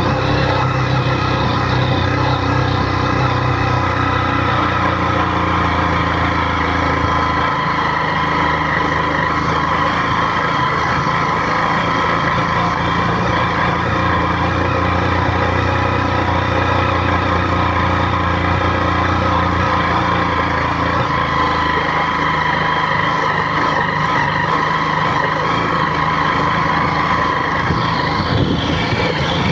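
A vehicle engine running steadily under load up a climb, its note shifting a few times.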